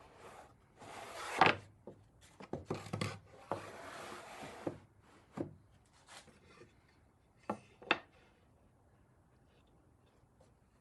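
Wooden pieces being handled: a few rubbing, sliding sounds about a second long, with several sharp knocks of wood on wood.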